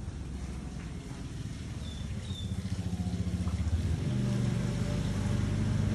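A low, steady engine-like rumble that grows louder about four seconds in.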